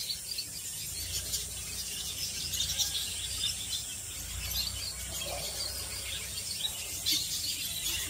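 A flock of caged lovebirds chattering: many short, high chirps overlapping continuously, with a faint low rumble underneath.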